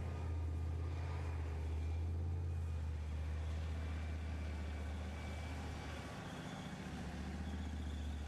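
A heavy vehicle engine running steadily as a low drone, easing off slightly about six seconds in and then picking up again.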